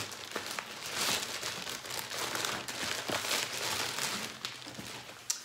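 Plastic poly shipping mailer crinkling and rustling in uneven surges as it is pulled open by hand, with a few sharp crackles.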